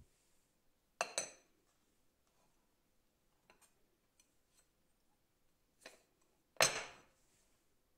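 A ceramic plate and a glass bowl knocking together: two sharp clinks with a short ring, one about a second in and a louder one near the end, with a few light taps between, as the plate is laid over the bowl and the pair is turned over and set down.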